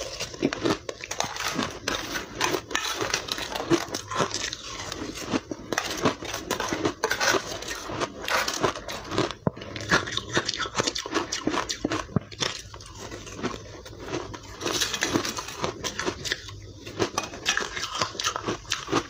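Close-miked biting and chewing of refrozen soft ice: a dense, irregular run of crisp crunches and crackles.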